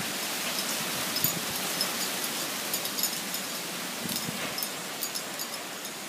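Strong wind blowing through trees: a steady hiss of rustling leaves, with a brief low rumble about four seconds in.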